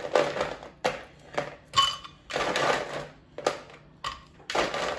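Handfuls of ice cubes dropped into a blender jar, clattering against the jar and each other in about seven separate bursts.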